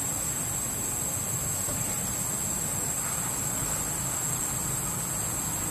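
Steady, unbroken high-pitched drone of an insect chorus, over a low steady background rumble.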